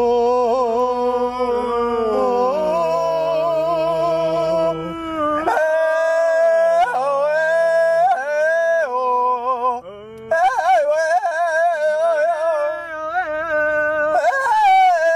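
Voices singing or humming long, wavering held notes that slide from pitch to pitch, in a howl-like chant, with a short break about ten seconds in.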